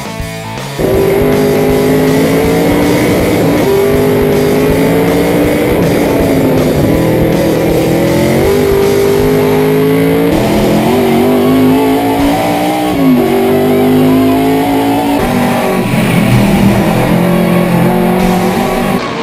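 Vintage V8 race car engine heard on board under hard acceleration, climbing in pitch and dropping back at each upshift, several times over, with music underneath.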